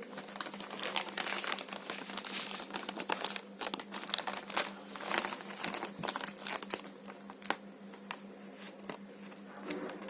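Packaging being handled and opened: irregular crinkling, rustling and tearing of wrapping, with sharp crackles throughout.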